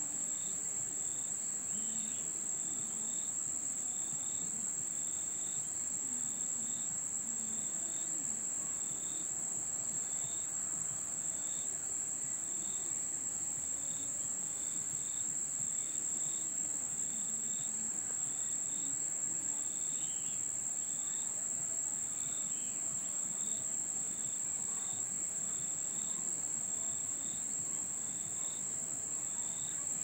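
Insects singing: a steady, high-pitched drone, with a second insect's short, lower chirps repeating about once a second.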